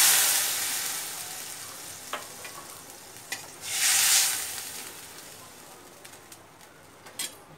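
Water hitting hot mustard oil in a steel wok of fried mango slices, sizzling loudly and dying away over the first couple of seconds. A spatula stirs and taps against the wok, with a few sharp clicks and a second short burst of sizzling about four seconds in.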